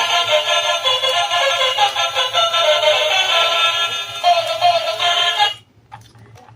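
Music with a high, synthetic-sounding singing voice that cuts off suddenly about five and a half seconds in, followed by a few faint clicks.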